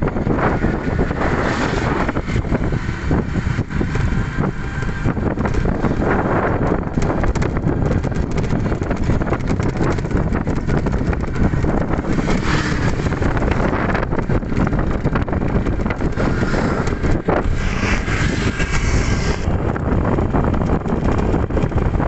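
Wind rushing over the microphone, together with road noise from a moving open-sided e-bike. It is a steady, loud rush, heaviest in the low range.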